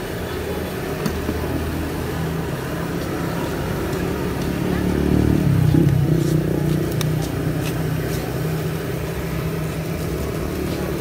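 Motor vehicle engine on the street, swelling to its loudest about five to six seconds in and then easing off as it passes. A few light plastic-bag crinkles sound near the middle.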